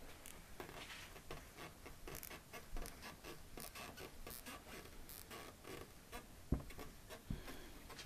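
Whiteboard eraser wiping marker off a whiteboard in many quick, faint rubbing strokes, with a single knock about six and a half seconds in.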